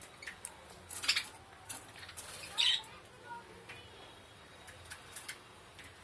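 Budgerigars calling in short squawks and chirps. The two loudest calls come about a second and about two and a half seconds in.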